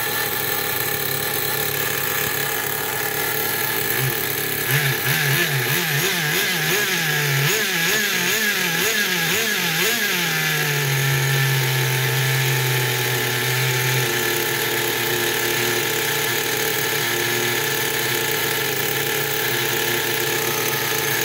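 The SH .18 nitro engine of a Redcat Racing Tornado S30 RC car runs on a stand with a glow igniter on its plug. About five seconds in, the throttle is blipped quickly up and down, about twice a second, for several seconds, and then the engine settles back to a steady idle.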